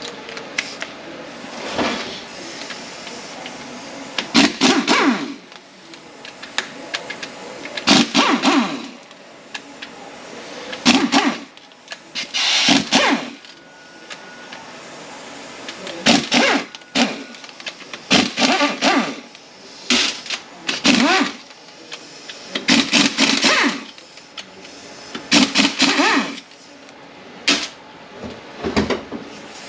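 Power tool running in about a dozen short bursts, a whirring tone with each one, spinning out the T40 Torx bolts that hold the bell housing and pump on a ZF 9HP48 (948TE) nine-speed automatic transmission.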